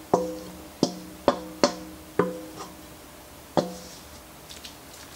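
Stainless steel mixing bowl knocked about six times at uneven intervals against a cast iron skillet to shake out the last of the cornbread dressing; each knock leaves a short metallic ring.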